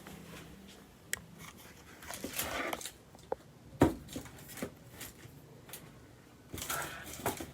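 Scattered handling noises: light rustling with a few sharp clicks and knocks, the loudest a single knock just under four seconds in.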